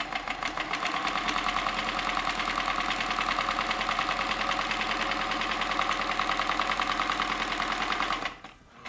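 Kenmore 158.1040 three-quarter-size sewing machine running steadily, sewing a stretch stitch: a motor whine with a fast, even clatter of the needle mechanism. It stops about eight seconds in.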